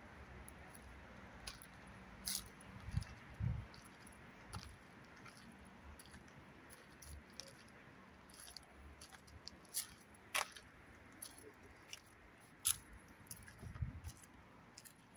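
Handling noise from a phone carried while walking: scattered light clicks and rustles, with a few dull thumps about three seconds in and again near the end.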